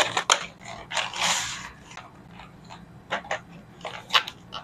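Plastic courier mailer being handled and unwrapped: scattered crinkles and rustles of the plastic, with a longer rustle about a second in and a few more crackles near the end.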